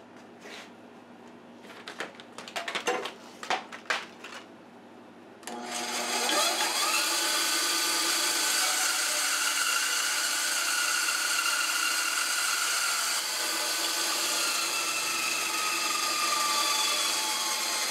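A few knocks, then a Delta benchtop band saw is switched on about five and a half seconds in, its motor whine rising as it spins up, and it runs steadily while cutting through a wooden dowel. The whine dips a little in pitch over the last few seconds.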